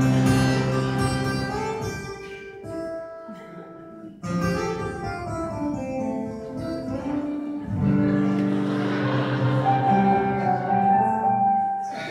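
Live acoustic guitar and keyboard playing slow, sustained chords, fading about three seconds in and coming back in just after four seconds.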